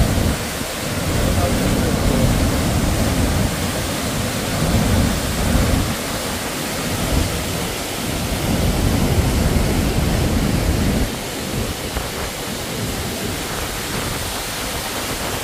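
High Force waterfall in heavy flow: a loud, steady rush of falling water, with a low rumble of wind buffeting the microphone that swells and fades.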